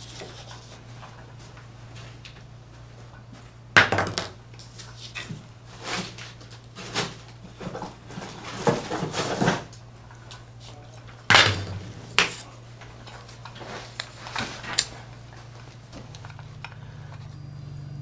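Small metal and plastic cable parts and tools being picked up, handled and set down on a tabletop: scattered clicks and knocks, two sharp knocks about 4 and 11 seconds in the loudest, over a steady low hum.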